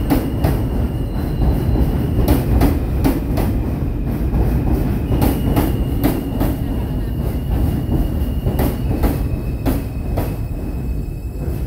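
A J train of R160 subway cars moving alongside the platform: a loud steady rumble of wheels on rail, sharp clicks as the wheels cross rail joints every half second to a second, and a thin high steady tone over it.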